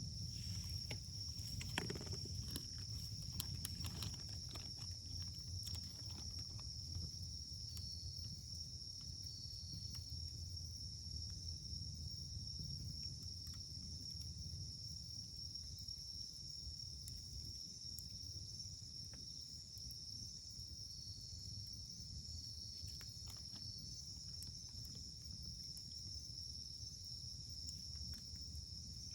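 Wood fire crackling: dense pops for the first several seconds, then sparser ones, over a low steady rumble. A steady high insect trill runs underneath, with a few short chirps.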